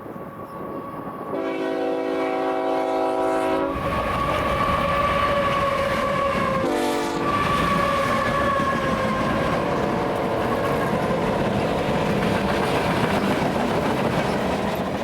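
BNSF freight train's locomotive horn sounding a long blast, a short one about seven seconds in, and another long blast, over the steady rumble of the passing train and its wheels on the rails.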